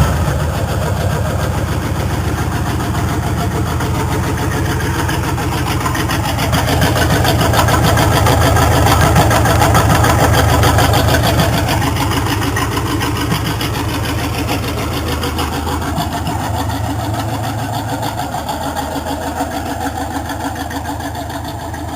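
Chevy 350 V8 running on open headers with no exhaust, a loud, choppy idle of rapid firing pulses. It swells louder about six seconds in for several seconds, then settles back and slowly quietens.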